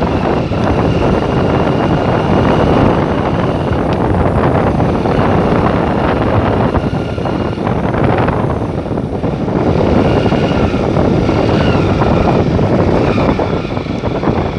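Motorcycle riding along at speed, its engine running under a steady rush of wind on the microphone.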